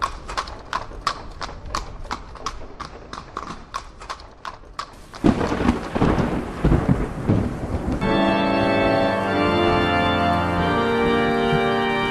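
Horse hooves clip-clopping at an even pace, about three steps a second. About five seconds in, a crash of thunder rumbles. About eight seconds in, organ chords come in and are held.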